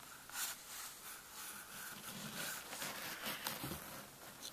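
Faint, irregular rustling and soft bumps of the camera being handled and clothing moving.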